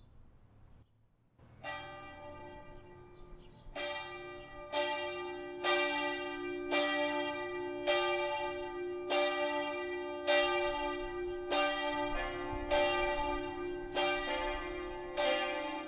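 Church bells ringing, struck about once a second, each stroke ringing on into the next. The strokes start faintly and grow louder after about four seconds.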